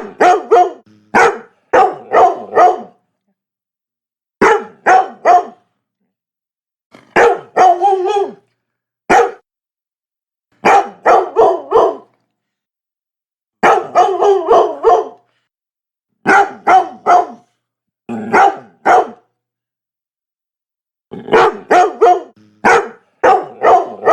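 Labrador barking in quick bursts of two to six barks, with a second or two of dead silence between bursts.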